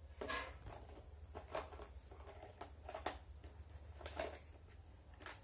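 Light rustling and a few scattered clicks as items are handled in a clear plastic box and its packaging, over a steady low hum.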